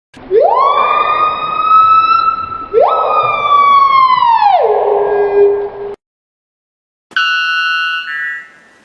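A siren wails twice, each time sweeping up quickly, holding high and sliding back down, the second fall settling on a low held note. After a short silence a brief chord of several steady tones sounds, shifting once just before it stops.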